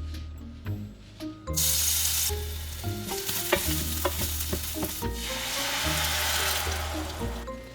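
Food sizzling in a hot frying pan while it is stirred, with utensil clicks against the pan. The sizzle starts loud about a second and a half in. Light background music plays underneath.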